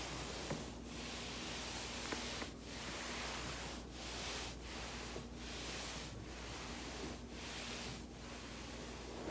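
Steady rustling of a body and clothing rolling on a foam roller, broken by short pauses about once a second.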